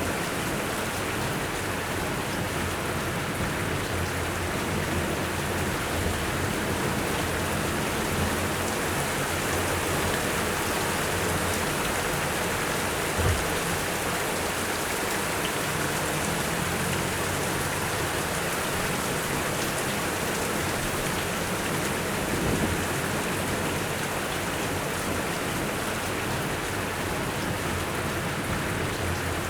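Steady gentle rain falling, an even hiss of drops. Two brief low thuds stand out, about a third and three quarters of the way through.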